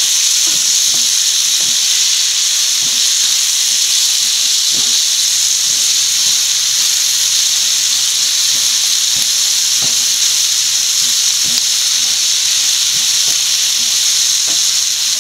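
Onion, capsicum and tomato masala sizzling steadily in oil in a frying pan, with light scattered taps and scrapes from a wooden spatula stirring it.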